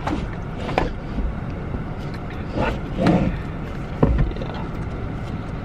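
A steady low rumble inside a car, with a few sharp knocks as items are shifted about in the cabin, and a brief vocal sound about three seconds in.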